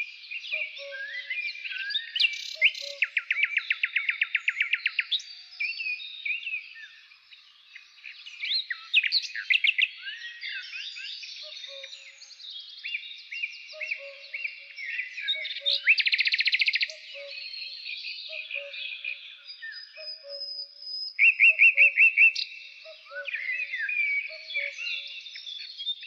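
Several songbirds singing at once, with fast repeated-note trills about three seconds in and again about twenty-one seconds in over a constant mix of whistled phrases. A soft low note repeats about once a second through the second half.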